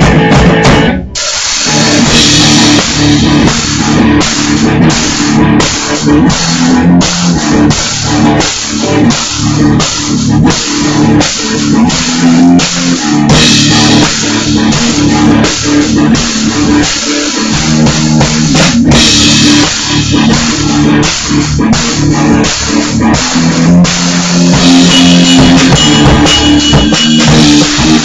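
Electric guitar and drum kit playing an instrumental stoner rock riff, loud and heavy on the drums, recorded through a laptop microphone with poor sound quality. The band stops briefly about a second in, then comes straight back in.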